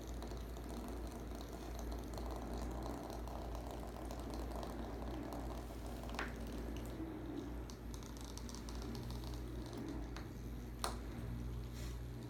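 Battery-operated toy bug rattling and skittering with fast, light clicks, with two sharper clicks about halfway through and near the end.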